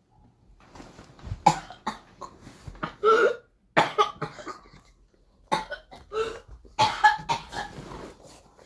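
A 12-year-old child's whooping cough (pertussis) coughing fit: runs of harsh coughs coming in quick clusters, one after another, with a longer drawn sound about three seconds in and brief pauses for breath.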